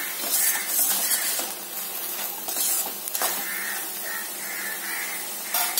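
Goat blood fry sizzling steadily in a non-stick kadai as the water drawn out by the salt cooks off. A steel spoon stirs and scrapes the pan in the first seconds.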